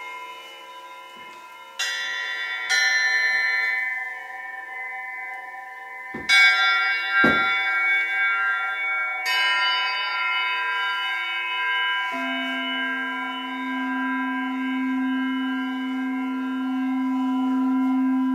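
Hanging metal singing pyramids struck several times, each strike ringing on in many overlapping bright tones. From about twelve seconds in, a crystal singing bowl is played round its rim with a mallet, giving a steady low hum that swells louder toward the end.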